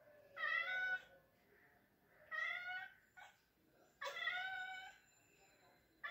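Domestic cat meowing repeatedly: three drawn-out meows about two seconds apart, each under a second long, with a fourth starting at the very end.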